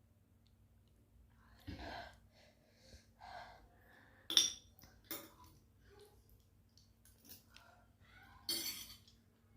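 A person eating spicy noodles: several short, separate breaths and mouth noises with faint clinks of cutlery. The loudest is a sharp sound about four and a half seconds in, and a longer breathy one comes near the end.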